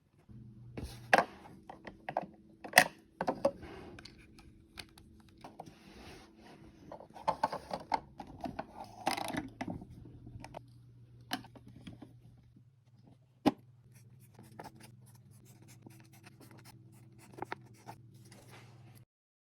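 Mini Brands toy capsule and its small plastic miniatures being unwrapped and handled: plastic wrap crinkling and scratching, with several sharp clicks and taps of small plastic pieces. A low steady hum runs underneath.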